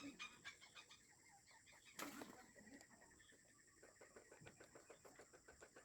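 Near silence with faint scattered clicks and one sharper click about two seconds in.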